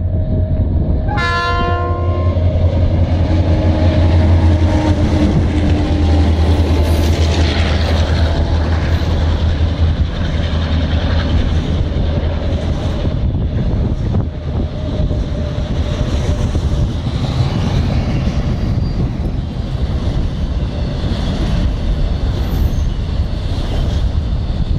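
Freight train hauled by EMD SDL50 diesel-electric locomotives: a short horn blast about a second in, then the locomotives pass with a deep engine rumble that is loudest in the first third. The steady rolling rumble and clatter of double-stack container wagons going by follows.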